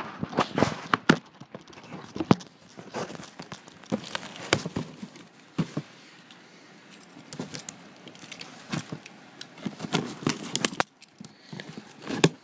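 Cardboard shipping box being handled and opened by hand: irregular knocks, scrapes and crackles of cardboard, some louder than others.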